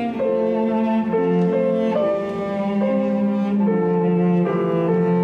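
Slow instrumental background music: held notes changing every second or so, a melody line over lower sustained parts, louder than the dialogue around it.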